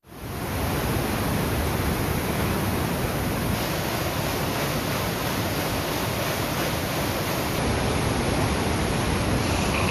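Brown floodwater of a swollen river rushing and churning over a check dam spillway: a steady, dense rush of water that sets in suddenly. The dam is overflowing in flood because its shutter could not be opened.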